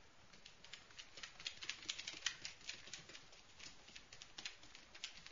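Puppies' claws clicking and pattering on a hard floor as they scamper about: quick, irregular light ticks, busiest from about a second in to three seconds in.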